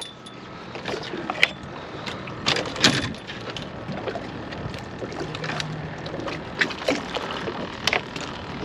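Scattered clicks and knocks of a hook being worked out of a sheepshead's mouth and the fish handled on a fibreglass skiff deck, over a steady background hiss.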